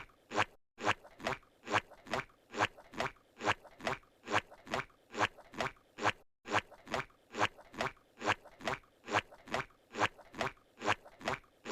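Squidward's cartoon walking sound effect: soft squishy footsteps at an even pace of about three a second, the loop breaking for a moment about half a second in and again about six seconds in.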